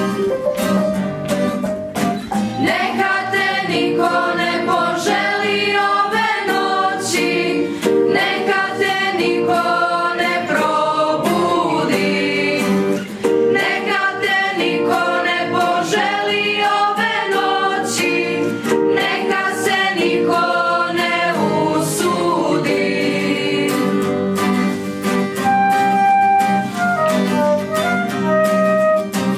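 A school choir of young mixed voices singing a slow song together, accompanied by a strummed acoustic guitar. The singing stops a little past the middle, and near the end a flute plays a melody over the accompaniment.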